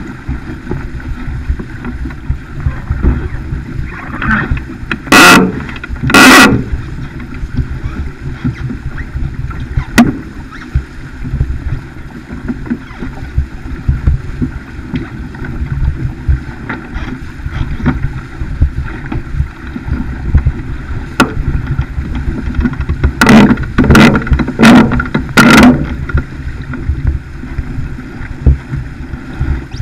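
Water rushing along the hull of a Farr 280 racing sailboat driving hard under sail, with wind buffeting the microphone. Several loud splashes of waves against the hull come about five seconds in, at about six and ten seconds, and in a cluster of four near the end.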